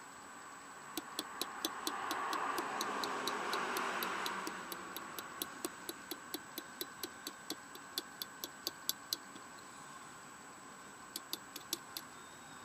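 A regular run of light clicks, about three a second, with a few more near the end, as a hand tool works at a small-engine carburetor. A soft hiss swells and fades in the first few seconds.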